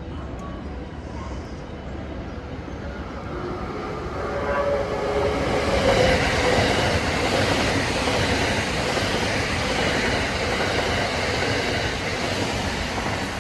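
A JR West 683 series electric limited express passing through a station at speed, its noise and the clatter of its wheels on the rails building over a few seconds, loud for several seconds, then easing near the end. A musical horn sounds as it comes in.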